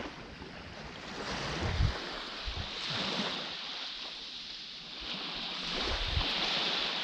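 Small waves washing onto a sandy beach, the hiss of the surf swelling and easing several times. Low thumps of wind buffet the microphone.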